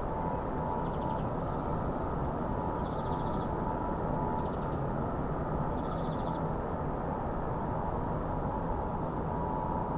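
A steady, dark ambient sound-design drone: a dense low rumble with faint held tones, broken now and then by short high chirps of rapid clicks.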